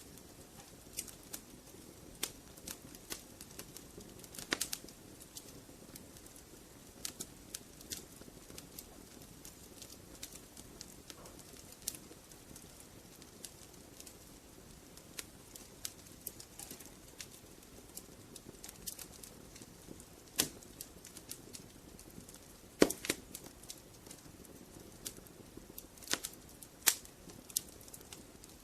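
Wood logs burning in a fireplace: irregular crackles and sharp pops over a soft steady hiss, with a handful of louder pops scattered through.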